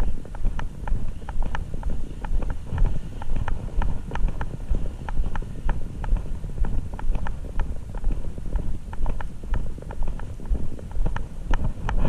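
Footsteps at a steady walking pace, about two to three clicky steps a second, over a low rumble of wind on the microphone.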